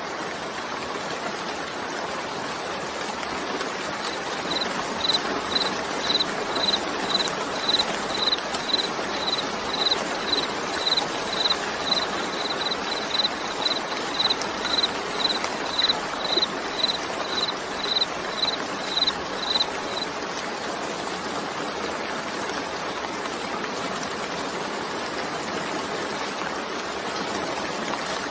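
Steady, even rain. From about four seconds in to about twenty, a short high chirp repeats about twice a second over it, then stops.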